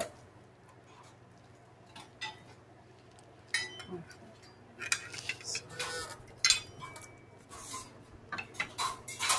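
Metal hand tools knocking and clinking as they are picked up and handled, a scatter of sharp knocks with short metallic ringing that comes thickest in the middle.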